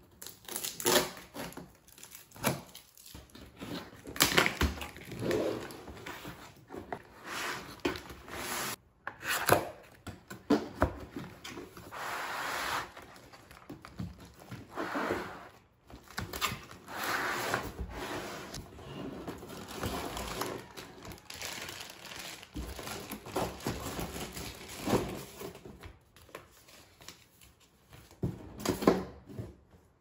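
Cardboard laptop box and its moulded pulp packaging tray being handled: irregular scrapes, rustles and knocks as the box is opened and the tray slid out onto the desk.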